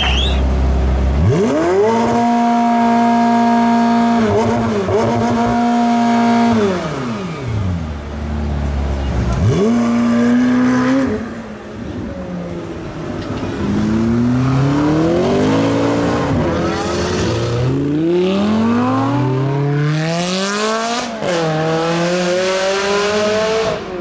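McLaren supercar's twin-turbo V8 revving hard. It is held high for several seconds, falls away, gives a short blip, then accelerates off through a quick run of upshifts, each gear a rising sweep.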